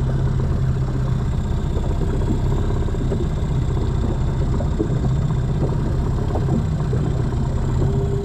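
Small Mariner 10 hp outboard motor idling steadily, an even low running sound.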